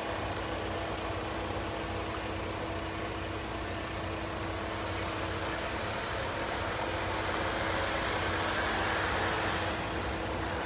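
Steady outdoor background noise with a constant low hum; a distant vehicle's noise swells about eight seconds in and eases slightly near the end.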